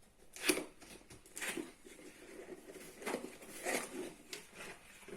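A cardboard box being opened and its packaging handled: a string of uneven rustles and scrapes.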